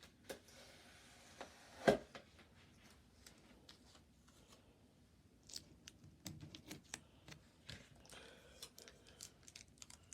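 Packaging being opened with scissors: scattered snips, clicks and rustles, with one sharper knock about two seconds in.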